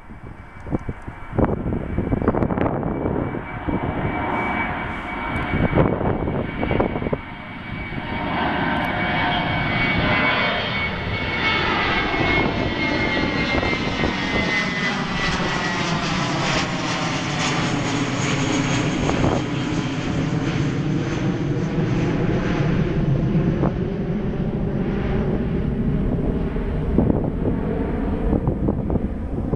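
Twin-engine turboprop airliner's engines and propellers running on the runway: a loud, steady drone that builds about eight seconds in and holds. Through the first half a high whine slowly drops in pitch. Wind buffets the microphone in the first few seconds.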